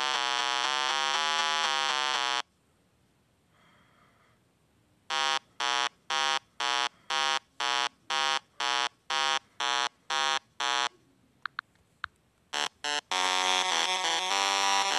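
Synthesized electronic buzzer-like sound effects. A steady buzzing tone stops about two and a half seconds in. After a pause comes a run of about a dozen short beeps, roughly two a second, then a few faint clicks. A steady buzz starts again about thirteen seconds in.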